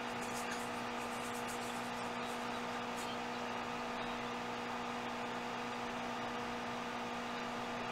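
Steady electrical mains hum with a constant hiss, and a few faint ticks.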